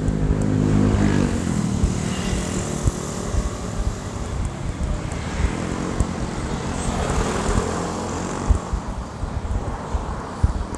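Engine noise of a vehicle passing close by, its pitch falling over the first couple of seconds, with another engine passing about halfway through, over a low, uneven rumble.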